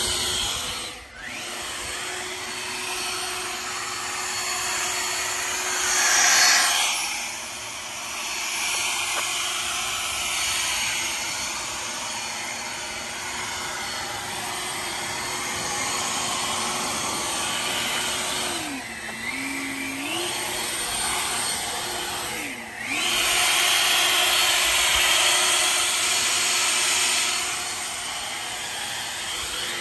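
EGO Power+ cordless backpack leaf blower running: a steady electric motor-and-fan whine over a rush of air. Its speed dips and comes back up twice past the middle, and it blows louder for a few seconds near the end.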